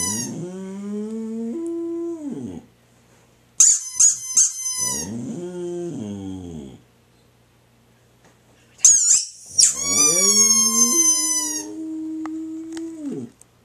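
Squeaky dog toy squeezed in quick, high squeaks, and each time a boxer dog answers with a long howl that rises, holds, then falls away; the exchange comes three times.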